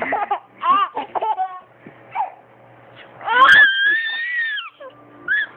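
A baby laughing in short bursts, then a long high-pitched squeal about three seconds in that rises, holds for over a second and falls away.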